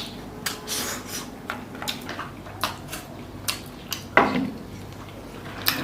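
Eating utensils clicking and scraping against a split bamboo tube as rice is scooped out and eaten: a string of irregular sharp clicks, the loudest about four seconds in.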